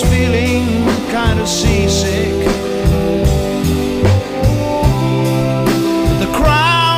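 Background music: a song with drums, bass, guitar and a singing voice.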